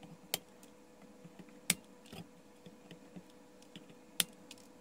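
Flush wire cutters snipping the component leads off the back of a circuit board: three sharp snips, a second or two apart, with lighter ticks of the tool and board being handled in between.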